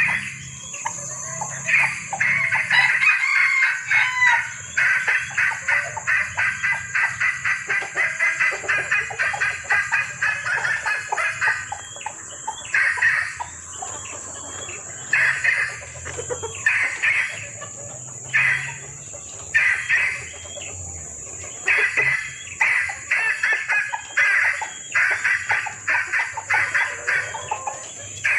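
Junglefowl hen calling to attract a male: a rapid run of clucks for roughly the first ten seconds, then short call bursts about once a second. A steady high hiss runs underneath.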